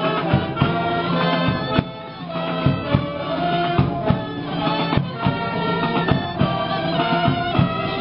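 A street band of xirimitas (Valencian double-reed shawms) and brass (trumpets, flugelhorn, trombones, tuba) playing a march together, the reedy shawm melody over the brass, with regular percussion strokes marking the beat.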